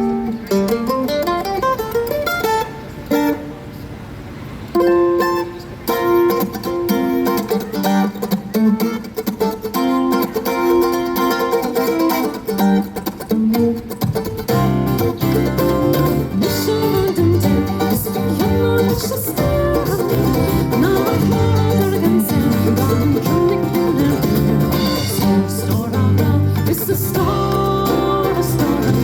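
Live band music during a sound check: a plucked string melody played alone at first, then about halfway through a bass and the rest of the band come in and play together.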